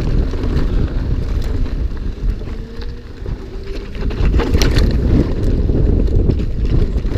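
Wind rushing over the camera microphone as a mountain bike descends a rough trail at speed, with a steady low rumble and frequent clicks and knocks from the bike rattling over the ground.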